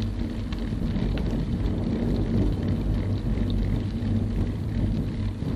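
Steady low rumble of wind and road noise on a bike-mounted camera's microphone while riding, with a constant low hum underneath.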